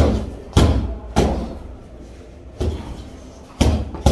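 Heavy thuds of kicks and punches landing on a 150 lb hanging heavy bag: about five solid blows at uneven intervals, each with a deep low thump.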